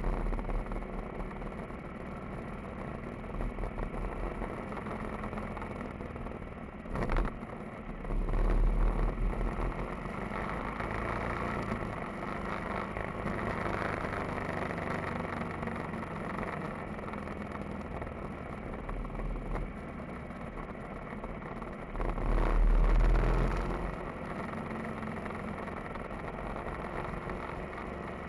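Motorcycle engine running steadily while riding, heard from a camera mounted on the bike, with wind noise on the microphone. Two louder spells of low wind rumble come about eight seconds in and again about twenty-two seconds in.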